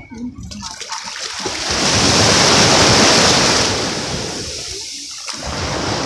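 A small wave washing up the sand close by: a rushing hiss of water and foam that swells over a second or two, peaks about two to three seconds in, then fades as it draws back, with the next wash starting to rise near the end.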